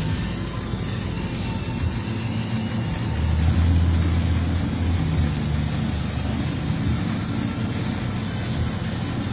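Motor-driven seasoning mixer machine running with a steady low mechanical hum, swelling a little louder about three seconds in.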